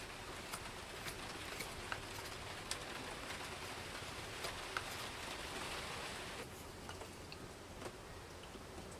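Steady rain hiss with scattered raindrop ticks, easing a little about six seconds in.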